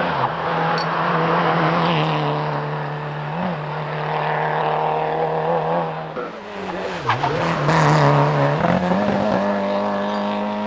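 1300 cc Group N Peugeot 205 rally car's engine running hard at high revs. The pitch holds steady, then drops and climbs back briefly just after the start and again about seven seconds in, as the driver lifts off or shifts.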